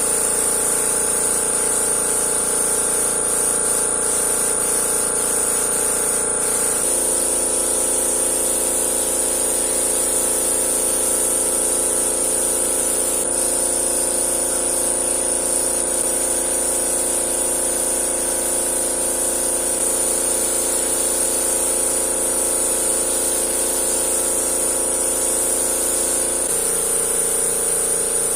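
A machine running steadily with a constant hum and a high whine. Its pitch pattern shifts suddenly about a quarter of the way in and again near the end.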